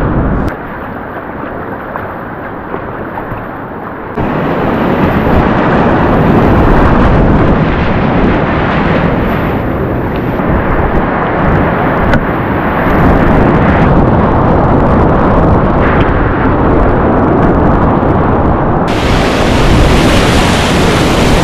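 Whitewater rapids rushing loudly close to the microphone as a kayak runs through them. About half a second in the sound goes muffled and quieter for a few seconds, then the full rush returns. It gets brighter and hissier near the end.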